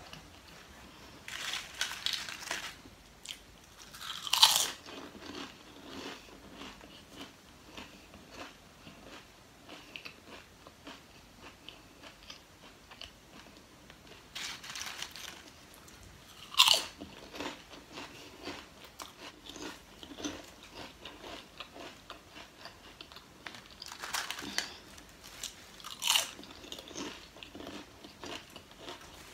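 Lay's potato chips bitten and chewed close to the microphone, three times over. Each time a rustle of chips being picked up comes first, then one loud crisp snap of the bite, then a run of small crunches as the chips are chewed.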